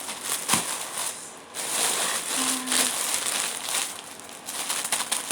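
Packaging crinkling and crackling as it is handled and opened, with many small crackles throughout.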